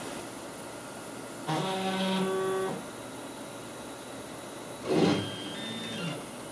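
CNC router table's axis motors whining as the gantry moves the router bit. There is a steady pitched whine from about a second and a half in to near the three-second mark, then a short rushing burst about five seconds in, followed by a fainter whine.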